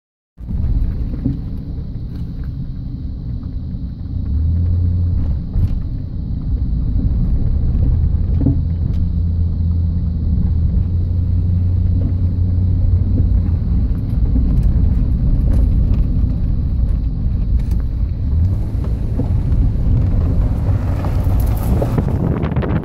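A car driving along a gravel farm track, heard from inside the cabin: a steady low engine and tyre rumble with small scattered clicks. Wind noise on the microphone swells near the end.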